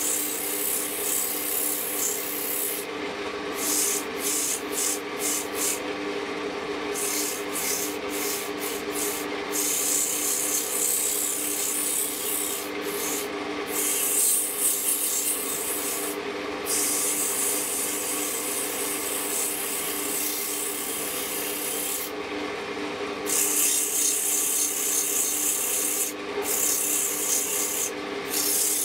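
Sandpaper held by hand against a wooden workpiece spinning on a wood lathe: a continuous rasping hiss over the steady hum of the lathe motor. The highest part of the hiss drops out briefly several times.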